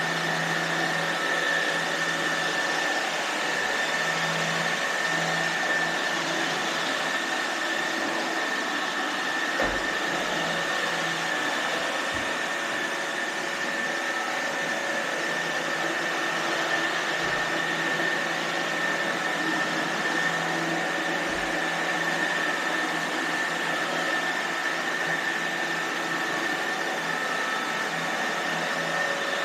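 iRobot Roomba robot vacuums running, with a steady whirring hiss and a high whine. A few low knocks sound now and then.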